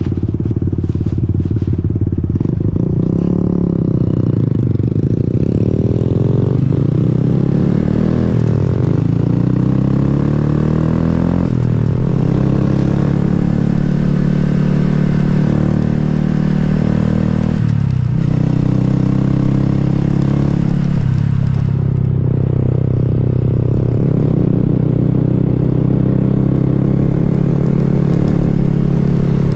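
Honda Grom's small 125 cc single-cylinder engine under way. Its pitch climbs as it accelerates and drops sharply at gear changes, several times.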